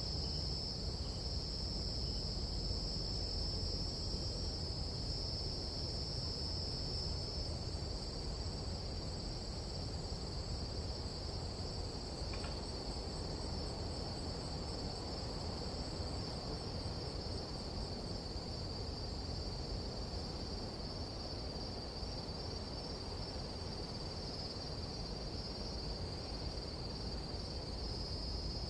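Steady, high-pitched chorus of night insects such as crickets or katydids, running without pause over a low, even rumble.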